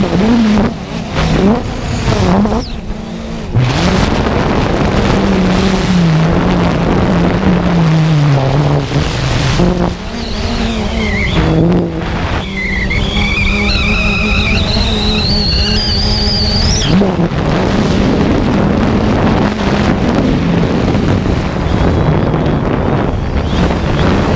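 Motor of a radio-controlled aircraft buzzing as it is flown, its pitch wandering up and down with the throttle. About halfway through, a higher whine climbs steadily for a few seconds before cutting off.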